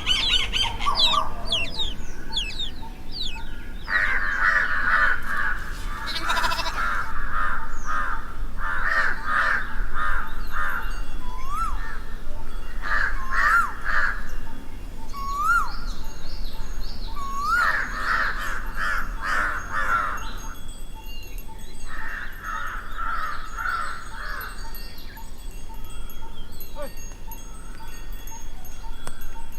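Mixed birdsong and bird calls in a daytime village ambience: several runs of rapid repeated calls lasting a few seconds each, a few short rising whistled notes, and faint high chirping of small birds throughout.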